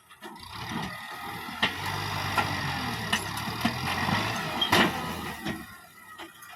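Kubota MU5501 tractor's diesel engine running, coming up just after the start and easing off near the end, with several sharp knocks and clanks over the engine noise.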